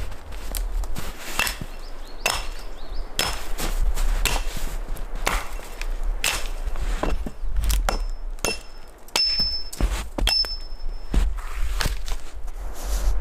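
Hatchet chopping a fallen branch: a dozen or so sharp blows about a second apart, some with a brief high ring after the strike.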